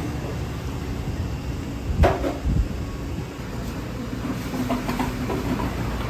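Eatery room noise: a steady low rumble, with two sharp clunks about two seconds in and a few faint clicks later.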